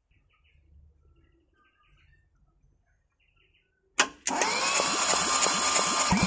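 Faint bird chirps, then about four seconds in a sharp clunk and the Kubota Z600 two-cylinder diesel's starter cranking the engine over, loud and steady, with the decompression lever being worked.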